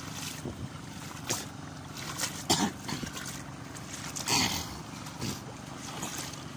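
Feet wading through shin-deep water and soft mud in a flooded rice paddy, sloshing and splashing at irregular steps about once a second, over a steady low engine hum in the background.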